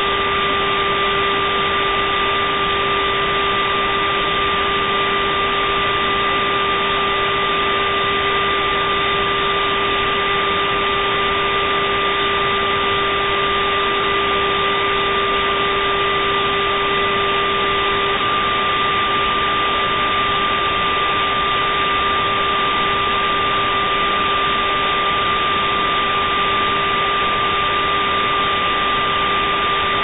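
Simulated cockpit voice recorder background noise: a steady, unchanging hiss with the highest frequencies cut off, overlaid by a constant electrical hum and two fainter steady higher whines.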